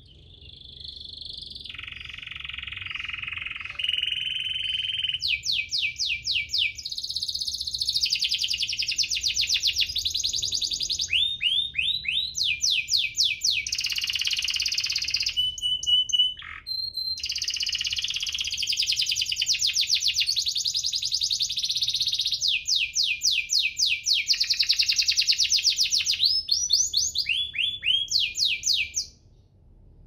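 Domestic canary singing a long, high-pitched song of rapid trills and rolls mixed with chirps and fast runs of repeated downward-sliding notes. It breaks off briefly about halfway, then resumes and stops just before the end.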